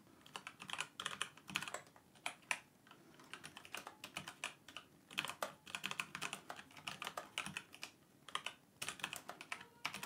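Typing on a Dygma Defy split mechanical keyboard fitted with stock, unlubricated Kailh Speed Copper switches: a quick, uneven run of key clacks with a couple of short pauses. It sounds solid, without hollowness from the case.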